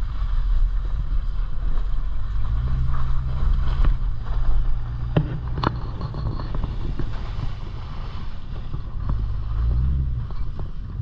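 Jeep Grand Cherokee engine running as it drives, with the engine note swelling with the throttle a couple of times. A few sharp knocks come about five seconds in.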